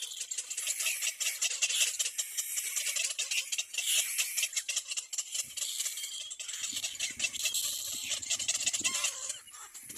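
Little black cormorant chicks calling in the nest: a continuous, rapid run of high, rasping calls.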